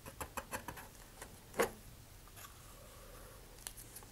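Small taps and clicks of a wooden stir stick against the epoxy cup and the rocket's taped body tube as epoxy is scooped out and laid along a fin joint. A quick run of taps comes at the start, one louder click about a second and a half in, and a couple more near the end.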